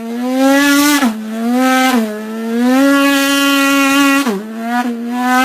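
A man's voice buzzing into a can, imitating a snowmobile engine at full throttle; the pitch climbs and drops back several times, like an engine revving and shifting.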